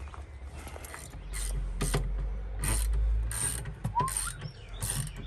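Ratchet wrench turning bolts: a run of about six ratcheting strokes, one every three-quarters of a second or so, starting about a second in.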